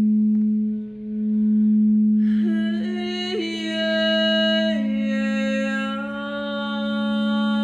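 Large quartz crystal singing bowl being rimmed with a mallet, a deep steady tone that swells and dips once. About two seconds in, a woman's voice joins, singing long held notes over it that step in pitch a couple of times.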